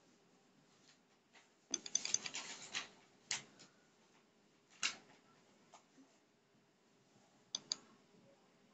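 A few faint clicks and scratchy rustles. A cluster of them starts about two seconds in and lasts about a second. Single clicks follow, then two quick clicks near the end.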